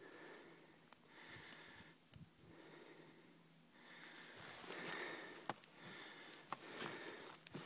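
Faint breathing close to the microphone, in slow swells about one breath every second and a half, with a few light clicks.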